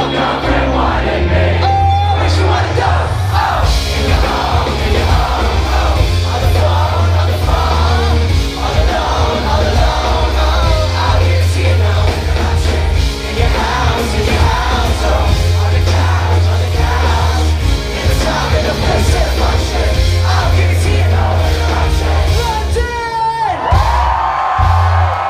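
Live band playing a hip-hop song with heavy bass, drums and electric guitars while the rapper sings into the microphone and the crowd yells along. Near the end the bass drops out, leaving a sustained higher tone.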